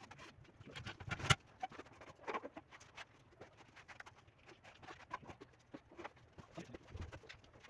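Irregular light clicks, knocks and rustles of hands-on work, with one sharper knock about a second in.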